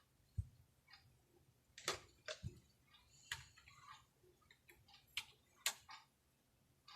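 Faint, irregular clicking from a MacBook being worked by hand on its trackpad and keys: about a dozen short, sharp clicks at uneven spacing.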